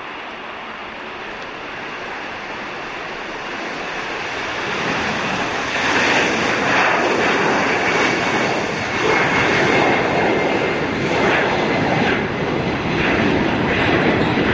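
Jet noise from a Boeing 747-271C's four turbofan engines at takeoff power as it lifts off and climbs out. The sound swells about five seconds in and then stays loud and uneven, rising and falling.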